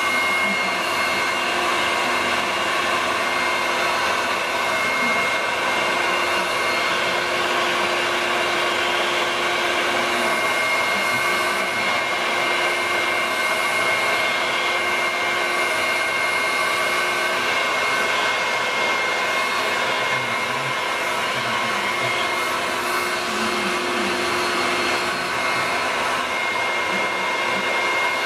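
Vacuum cleaner running steadily with a high whine over a loud rush of air.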